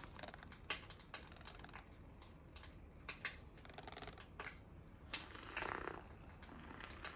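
Handheld battery milk frother whisking warm milk in a plastic cup: faint, irregular clicking and tapping, as of the whisk knocking against the cup, with a brief swell of frothy hiss a little before the end.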